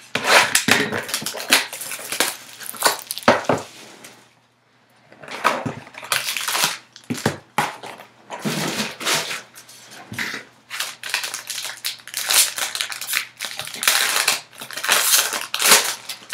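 Foil wrapper of a trading-card pack crinkling and tearing open, after the 2017 Topps Tier One cardboard box is handled and opened, in irregular rustling bursts with a short pause about four seconds in.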